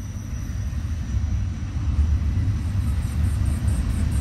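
Freight train of tank cars rolling past on the near track, a steady low rumble of wheels on rail that grows louder, with a double-stack train moving on the far track.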